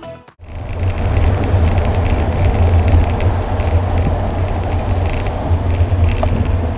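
Steady wind rumble on a bicycle camera's microphone while riding along a road, with traffic noise and faint rattling ticks from the bike.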